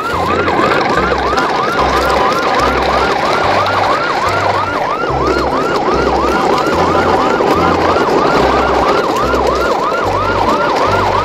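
Electronic siren in a fast yelp, a rising-and-falling wail about three times a second, over deep bass notes that change every half second or so.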